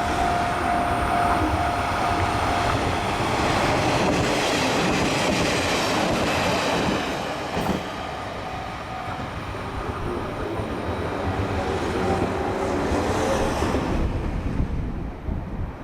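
A train running past a level crossing, its wheels clacking over the rail joints. The sound is loud for the first half, dips, builds again and falls away near the end. Over the first few seconds a level-crossing warning bell rings, with a repeating tone.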